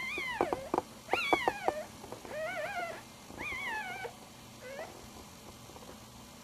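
Newborn puppy whimpering: about five short, high squeaky whines with pauses between them, most of them falling in pitch.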